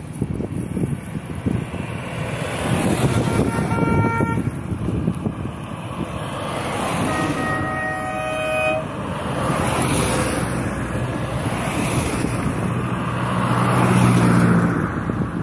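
Classic cars driving past one after another, each engine swelling as it goes by. A car horn toots twice: briefly about four seconds in, then a longer toot of about a second and a half a little after the middle.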